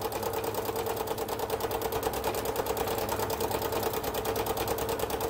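Sewing machine running steadily at an even, rapid stitch rate, free-motion stitching with the feed dogs lowered.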